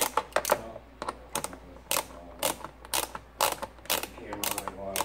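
Ratchet socket wrench clicking as it backs a screw out of a GY6 scooter engine's plastic housing, sharp clicks in quick pairs about every half second, with some faint creaking.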